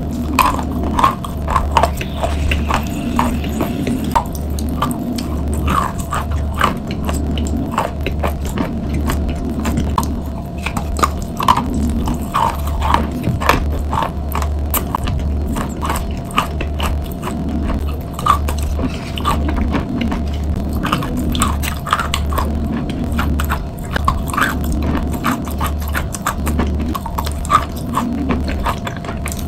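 Close-miked chewing and crunching of wet chalk and chalk paste, with many small crackling crunches, over a steady low hum.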